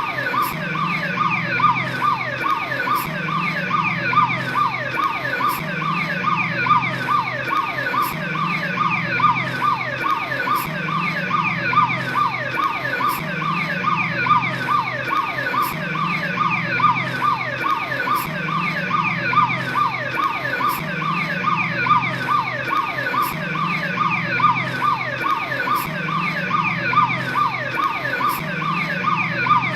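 Police patrol car's electronic siren sounding a fast cycling tone: short falling sweeps repeat several times a second without a break, over a low pulse about every second and a half.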